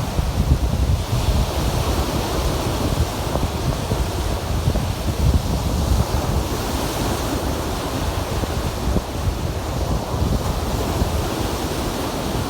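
Lake Erie waves breaking and washing on the shore in a continuous surging rush that swells and eases every few seconds, with wind buffeting the microphone as a heavy low rumble.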